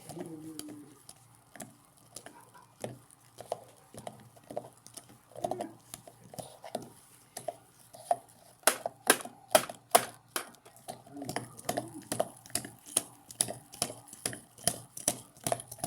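Washing machines running, with a steady low hum under a fast, uneven run of sharp clicks and knocks. The clicks are loudest and most crowded in the middle.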